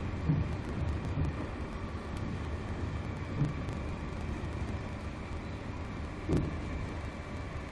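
Steady whirr of a BGA rework station's hot-air heater fans running through a heating cycle on a laptop motherboard. A few soft, low knocks sound about four times.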